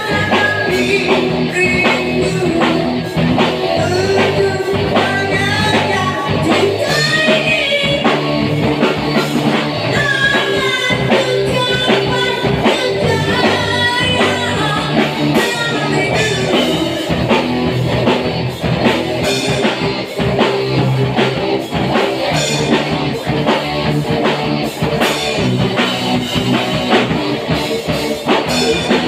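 Live rock band playing: a singer's voice through a microphone over electric guitar and a drum kit.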